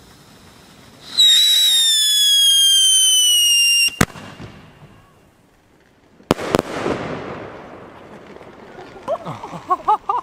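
Funke 3 Schlag Schocker consumer firework: a loud whistle falling slowly in pitch for about three seconds ends in a sharp bang, then about two seconds later two more bangs close together.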